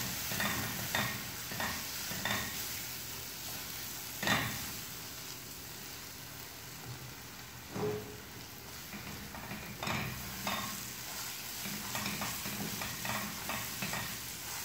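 A wooden spatula stirring and scraping a thick onion-tomato masala in a nonstick kadai, over a soft sizzle of frying, with a few louder strokes. The chilli and coriander powders are being fried until their raw smell goes.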